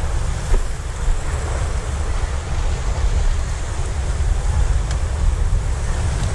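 Wind rumbling on the microphone over the steady wash of sea waves breaking against a rocky shore.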